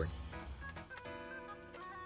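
Soft background music with sustained notes.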